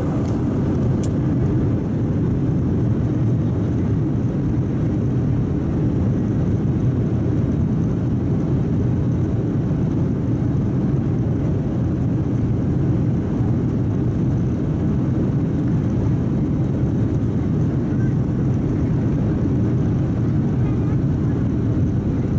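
Steady low rumble inside the cabin of a Boeing 737-700 on the ground, its CFM56-7B jet engines running at low power, with no rise in pitch or loudness.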